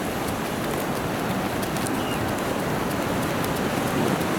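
Rain falling steadily: an even hiss with a few sharp ticks of drops.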